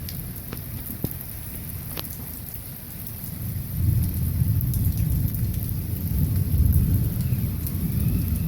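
Heavy rain hissing steadily, with deep rolling thunder that swells about four seconds in and rumbles on. A few sharp ticks of drops striking something near by come in the first two seconds.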